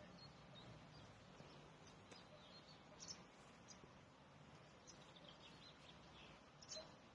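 Near silence: faint outdoor ambience, with a few short high chirps about three seconds in and again near the end.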